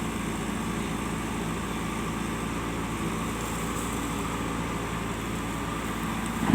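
Diesel engine of a JCB backhoe loader running steadily with an even low drone, and a short knock right at the end.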